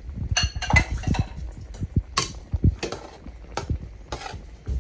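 A utensil stirring a creamy chicken and mushroom sauce in a metal sauté pan, with irregular scrapes and clinks against the pan, as a flour-and-water slurry is worked in to thicken the sauce.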